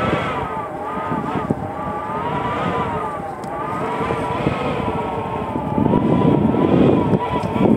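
Snowstorm wind wailing: a sustained, eerie howl whose pitch wavers slowly up and down, over gusty rushing noise that grows louder near the end.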